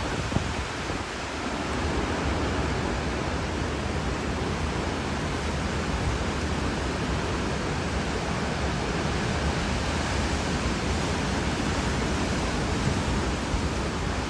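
Hurricane wind and rain outdoors, a steady rushing noise with no pauses.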